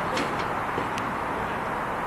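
Train of passenger coaches rolling away on the line: a steady running noise with a few sharp clicks from the wheels.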